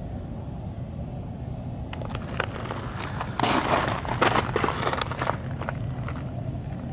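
Ice crunching and crackling in a dense run of sharp snaps for about three seconds in the middle, over a steady low rumble.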